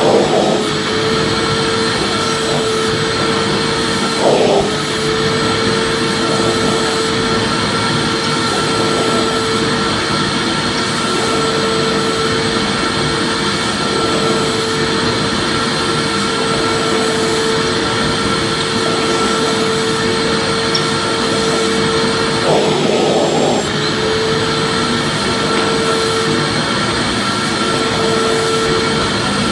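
Vacuum cleaner running steadily: a constant rushing drone with a steady motor hum. Two short bumps break it briefly, about four seconds in and again a little past twenty seconds.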